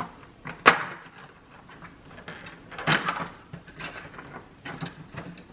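Dog-treat packaging being opened by hand: a sharp click about a second in, then scattered crinkling and rustling.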